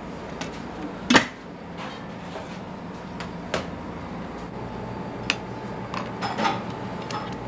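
Ramen shop kitchen clatter: a few sharp clinks and knocks of dishes and utensils, the loudest about a second in, over a steady hum of kitchen equipment.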